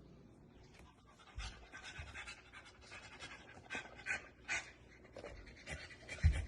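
A dog panting in a run of short, faint breaths, about two to three a second, starting about a second and a half in.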